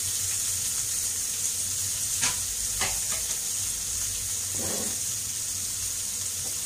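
Beef rib pieces and sliced white onion sizzling steadily in a frying pan. Two sharp clicks come about two and three seconds in.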